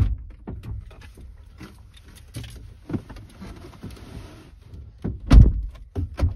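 A person getting into a van's driver's seat: clicks, knocks and rustling of clothing against the seat and door trim, then a heavy thud of the driver's door shutting about five seconds in.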